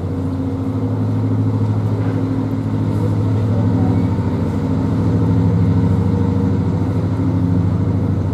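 Narrowboat's diesel engine running steadily at slow cruising speed, an even low throb.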